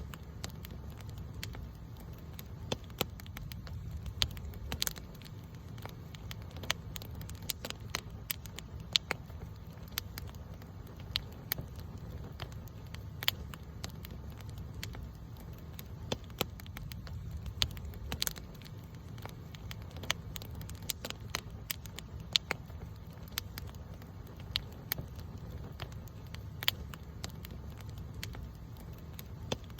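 Wood campfire crackling and popping, with sharp irregular snaps several times a second over a steady low rumble.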